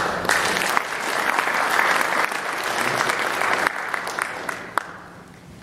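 Audience applauding, starting at once, then dying away over the last second or two.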